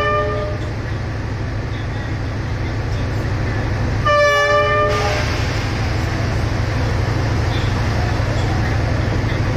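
Diesel locomotive engine idling with a steady low rumble. A long multi-note horn blast cuts off just after the start, and a second short horn blast sounds about four seconds in, sagging slightly in pitch as it ends. A broad hiss rises after it.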